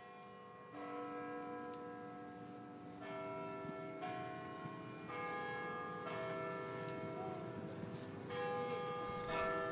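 Bells ringing a slow tune: a new note or chord struck about every second, each one ringing on under the next.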